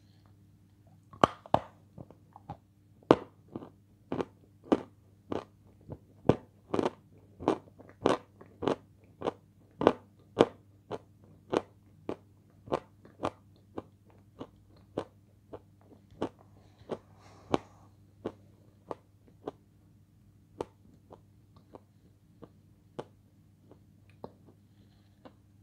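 A person chewing crunchy food with the mouth closed, regular crunches about three every two seconds, loudest in the first half and growing fainter toward the end.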